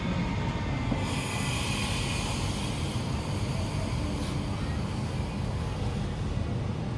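Steady interior running noise of a Queensland Rail SMU 220 electric suburban train: a low rumble of the carriage on the track, with a rush of hiss starting about a second in and fading over the next second or so.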